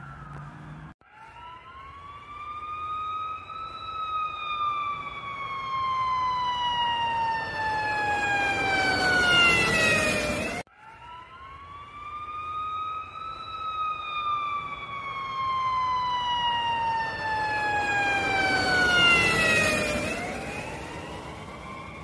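A siren winding up and then slowly falling in pitch, sounded twice. Each wail rises for about two seconds and falls over about seven. The first breaks off abruptly about ten seconds in, and the second follows at once.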